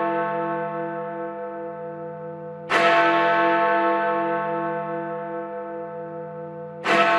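Church bell tolling the midnight hour, struck slowly about every four seconds: the previous stroke rings on and dies away, a new stroke comes under three seconds in and another near the end. Each stroke rings long with a slow pulsing hum.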